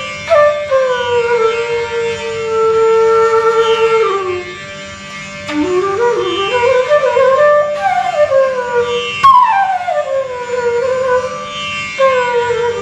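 Bamboo bansuri flute playing a slow melody: long held notes joined by pitch slides, one rising slide about halfway through and a falling slide later on.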